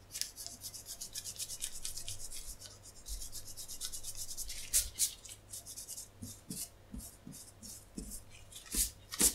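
Gum eraser rubbed briskly back and forth over soiling on thin Japanese paper: quick, dry scrubbing strokes for the first few seconds, then slower, scattered strokes.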